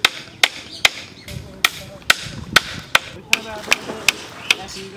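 A hand tool striking bamboo in a fast, steady rhythm, about two and a half sharp blows a second, as a bamboo ladder is fixed to a stilt-house platform.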